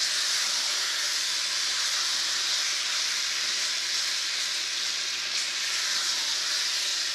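Cubed pork and onions in chili paste sizzling steadily in an enameled cast-iron pot as they are stirred with a spatula.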